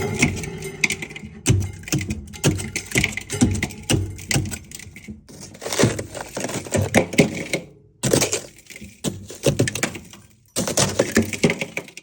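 Flat wooden rice spoon chopping and scraping built-up frost and ice off the inside of a Servel propane fridge: a fast, irregular run of knocks and scrapes that breaks off briefly twice near the end.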